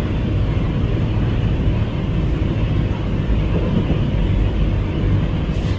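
Steady outdoor rumble and hiss, heaviest in the low end, with no distinct mechanical tone or separate events.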